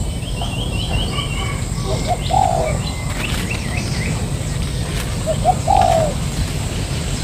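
Spotted dove cooing twice, each call a couple of short low notes and then a longer falling coo. Small birds chirp faintly and high in the background.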